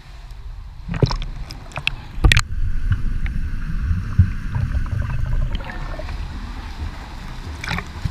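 Pool water around a camera plunged under the surface: a few sharp splashes and knocks as it goes in, then a muffled underwater rumble for about five seconds, and a splash near the end as it breaks the surface again.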